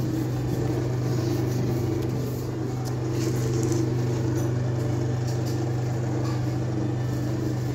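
Steady low mechanical hum, unchanging in pitch, with a few faint light ticks about three seconds in.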